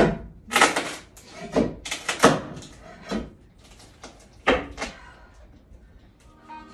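A series of irregular knocks and bangs, about eight in all, some coming in quick pairs, the loudest about two seconds in.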